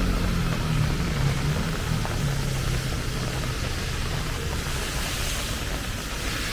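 Heavy rain falling steadily on the street, with a low rumble underneath that eases off over the first few seconds.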